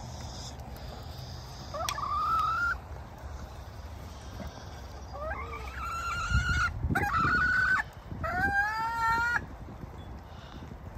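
Backyard hens calling: four drawn-out, rising squawks of about a second each, spread between about two and nine seconds in. A dull low thump comes a little past six seconds, over steady low outdoor noise.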